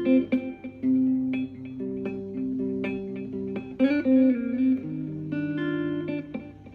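Instrumental guitar music: a melody of plucked, held notes over sustained lower notes, with a note bent in pitch about four seconds in.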